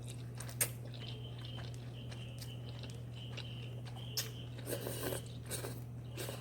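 A person eating spicy instant noodles: chewing with scattered small clicks and mouth smacks, the sharpest about half a second in. A steady low hum runs underneath.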